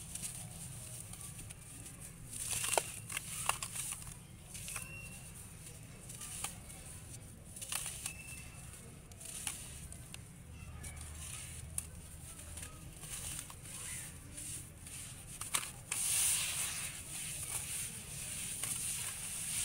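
Dry lumps of sand-cement mix crushed and crumbled by hand over a bucket of muddy water: gritty crunching and crackling with scattered sharp snaps, thickest near the end.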